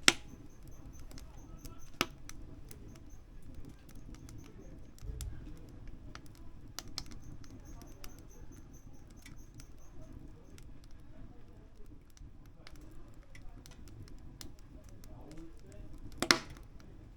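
Firewood burning in a wood stove, crackling with scattered sharp pops over a low steady rumble. Loud pops come right at the start, about two seconds in and near the end.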